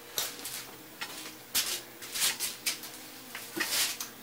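Footsteps and shuffling on a concrete floor as a person gets up, moves and crouches again: about ten short, irregular scuffs and taps.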